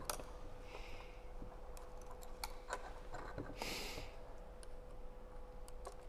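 Light metallic clicks and ticks of a steel roller chain and a small awl being handled while the chain end is lined up with the holes in the taper cutter's fitting. There are two short soft hisses and a faint steady hum underneath.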